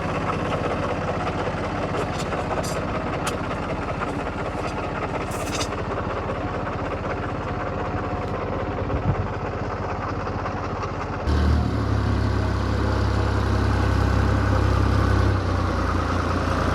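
Diesel tractor engine running at idle, with a few light metallic clinks in the first half. About eleven seconds in, the sound changes abruptly to a louder, deeper steady engine note.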